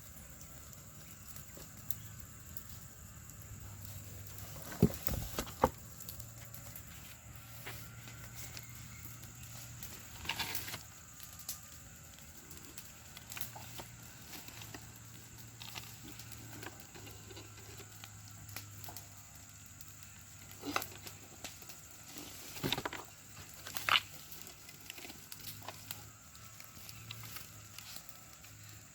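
Scattered clicks and knocks from parts and tools being handled on a workbench, a few at a time with pauses between, over a low steady hum.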